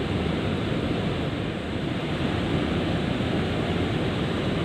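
Steady rushing noise of water flowing at a river weir, even throughout with no distinct splashes or knocks.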